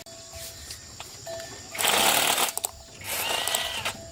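Two short bursts from a workshop power tool, each lasting under a second, about 2 s and 3 s in. The second burst carries a whine that rises and then falls.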